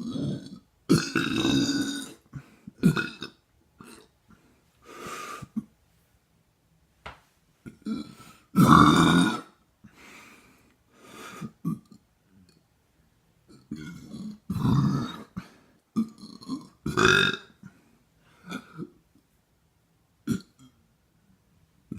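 A person burping over and over: a long string of separate burps with short pauses between them, some brief and some drawn out, the loudest and longest about nine seconds in.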